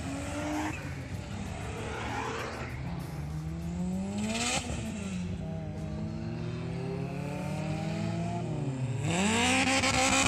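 Car engine accelerating hard through the gears. Its pitch rises, drops at a gear change about four and a half seconds in, and climbs again. Near the end it swells louder and falls away.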